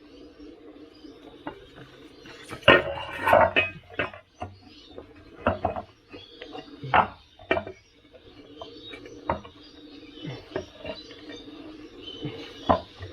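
Metal tools and parts clinking and clattering during a tyre change on a Veteran Sherman electric unicycle: a string of sharp knocks and clinks, busiest about three seconds in, over a faint steady hum.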